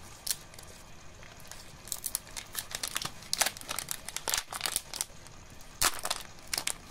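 Thick plastic trading-card booster pack crinkling and tearing as it is pulled open by hand: quiet at first, then a run of sharp crackles from about two seconds in, loudest near the end.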